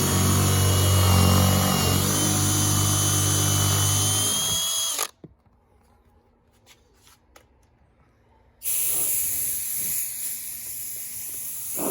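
Power drill running steadily with a high whine as it drills the hood for a hood-pin quick-release latch, stopping suddenly about four and a half seconds in. After a few seconds of quiet with faint clicks, a steady hiss starts.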